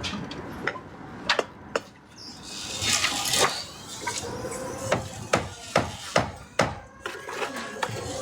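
Hammer blows on timber: scattered sharp knocks, then a run of quick strikes about two a second.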